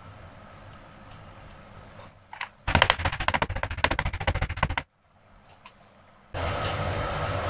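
A metal cake tin full of batter rattled rapidly against a stone worktop for about two seconds, a fast run of sharp knocks that settles the batter and knocks out air bubbles. Near the end a steady rushing noise starts up.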